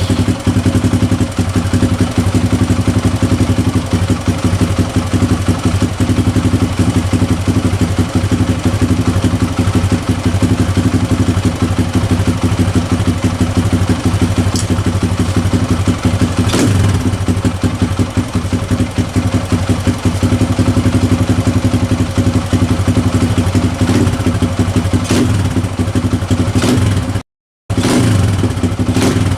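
Kawasaki KLX140's small single-cylinder four-stroke engine idling steadily on a newly fitted Mikuni VM26 carburetor, its idle just turned down from a little high. The sound cuts out briefly near the end.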